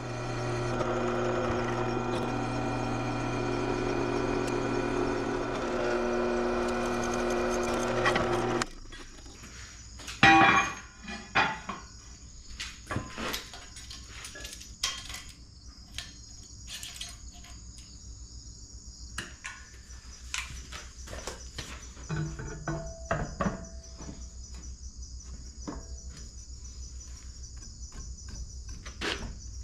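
Metal knocks and clanks as a heavy electric motor and steel plate are handled on a workbench, over a steady high chirring. For the first eight seconds a loud steady pitched hum covers everything, then cuts off suddenly.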